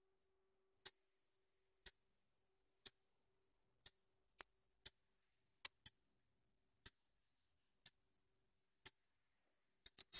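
Faint, regular ticking, about one tick a second, in an otherwise near-silent room.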